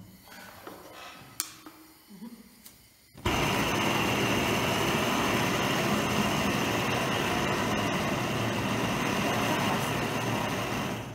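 A portable butane canister torch lights about three seconds in and then burns with a loud, steady rushing hiss of gas flame.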